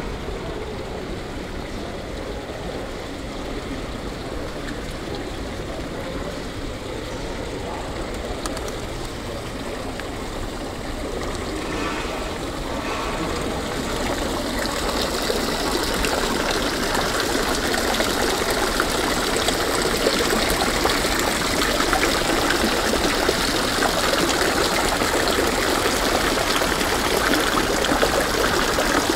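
Running water splashing steadily, growing louder about halfway through and then holding steady.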